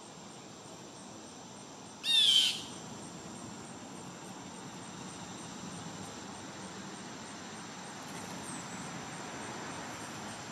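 A wild bird gives one short, loud call of quick down-slurred notes about two seconds in, over a steady outdoor hiss with faint, evenly spaced insect chirps.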